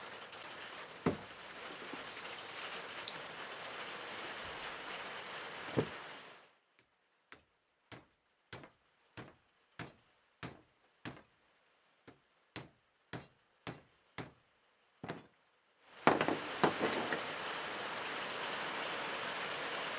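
A run of about fifteen evenly spaced hammer taps, a little under two a second, driving a sleeve onto a Suzuki Swift gearbox input shaft. Before and after the taps there is a steady hiss with a few single knocks, the loudest near the end.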